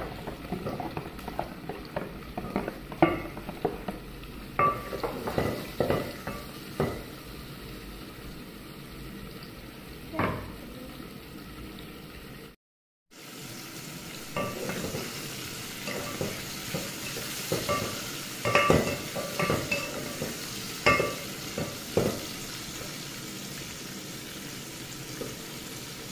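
Chopped vegetables sizzling as they fry in an aluminium pot, with a wooden spoon stirring and knocking against the pot's sides. The sound drops out completely for about half a second near the middle, and the sizzle is brighter afterwards.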